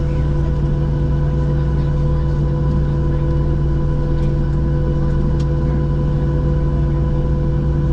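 Steady drone of a Boeing 737-700's machinery heard inside the passenger cabin on the ground after landing, an even hum with several held tones, and a couple of faint clicks about midway.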